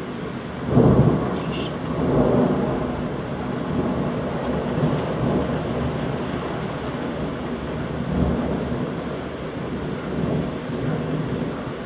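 Thunder during a heavy downpour: a loud clap about a second in rolls on into a long rumble that swells again several times. Steady heavy rain runs underneath.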